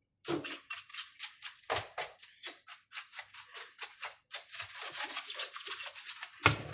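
A small brush scrubbing dirt off the inside of an old patient monitor in quick repeated strokes, about six a second, with a knock near the end.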